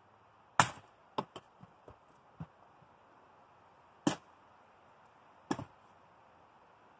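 Hatchet chopping kindling on a wooden chopping stand: three hard, sharp chops into the wood, the first the loudest, with a few lighter taps in between.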